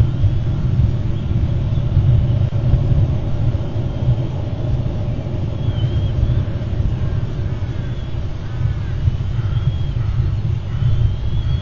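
Steady low rumble of wind buffeting an outdoor nest-cam microphone, with a few faint high chirps from birds about midway and near the end.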